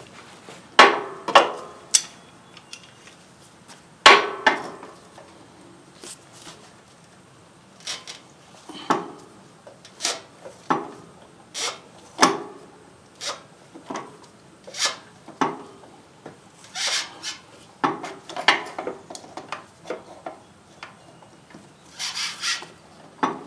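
Hand tools clanking and scraping on a stuck spin-on oil filter as it is worked loose, with irregular sharp knocks and clicks, the loudest about a second in and again about four seconds in.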